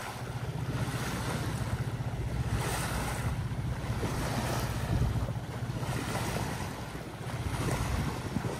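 Brasília 32 sailboat under engine power, its small engine running in a steady low hum, smooth-running and quiet, with water washing along the hull and wind on the microphone.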